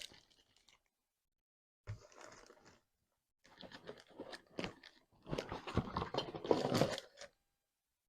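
Packaging crackling and rustling as cookware pieces are taken out of their box, with a single knock about two seconds in and denser crinkling toward the end.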